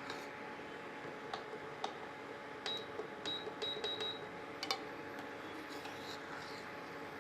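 A metal spoon clinking against the pot of spiced milk on the stove: a run of light, sharp clinks, several with a short high ring, bunched in the middle seconds, over a steady hiss.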